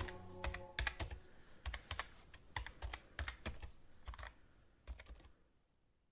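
Typing on a computer keyboard: irregular key clicks in quick clusters, thinning out and stopping about five seconds in.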